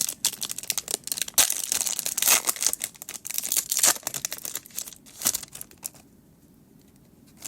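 Foil wrapper of a Pokémon trading-card booster pack crinkling and tearing open, a dense crackle for about four seconds, with one more crackle about five seconds in.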